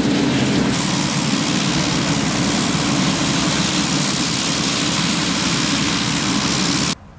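Pilatus PC-12's single Pratt & Whitney PT6A turboprop running steadily on the ground with its propeller turning: a loud even rush with a low hum beneath. Near the end the sound cuts off abruptly to a much quieter background.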